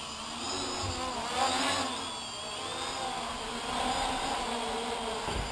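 X525 quadcopter's electric motors and propellers whining and buzzing, the pitch wavering as the motors speed up and slow down while it hovers low and comes down to land.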